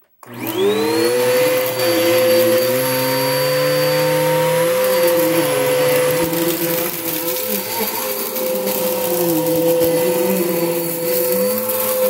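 A 2013 Bissell Powerforce Helix upright vacuum cleaner switches on, its motor whining up to speed in about half a second. It then runs steadily and loudly on carpet, with a constant high whine over a lower rumble that wavers as it works.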